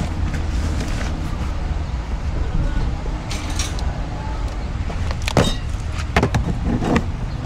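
Steady low rumble of a car, with several sharp knocks and rattles in the last few seconds.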